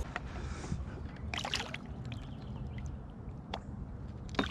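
Light water sloshing beside a kayak, with a short splash about a second and a half in as a speckled sea trout is lowered into the water and released.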